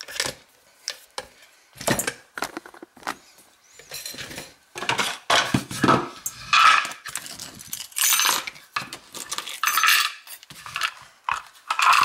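An American 1100 series aluminium padlock being handled and set down: a string of sharp metallic clicks and clattering knocks as the lock body and shackle hit the bench and a wooden tray.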